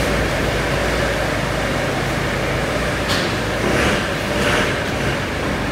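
Steady workshop background noise, a hiss and hum like fans running, with a few faint short handling sounds in the second half as grease is packed by finger into a control-arm bush.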